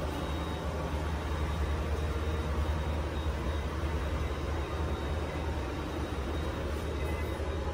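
Steady low rumble and hiss inside a passenger ferry: the constant hum of the ship's machinery and ventilation, with no separate events.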